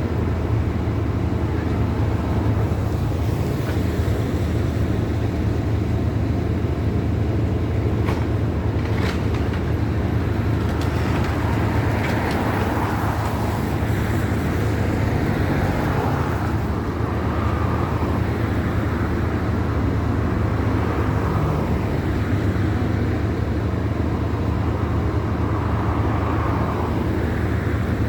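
A diesel engine running steadily with a low drone, typical of demolition plant working on site. A few faint clicks come about eight seconds in, and a mid-pitched noise swells and fades several times in the second half.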